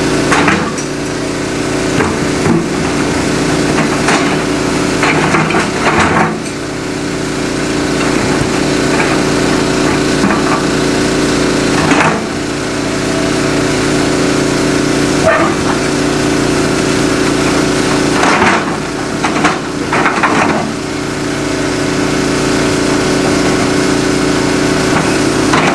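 Excavator engine running steadily while its steel bucket pushes a large footer rock down into the cobble stream bed, with rock knocking and grinding against rock and steel every few seconds.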